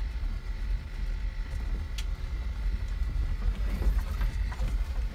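Cabin sound of a 4x4 crawling over a rocky dirt track: a steady low rumble from the engine and drivetrain, with knocks and rattles from the body and suspension over the stones, the sharpest about two seconds in.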